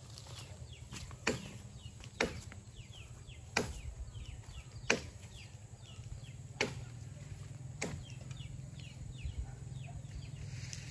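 Leaf stems snapping as leaves are picked off a tree: about six sharp snaps, each one to one and a half seconds apart. Birds give short falling chirps between them over a steady low hum.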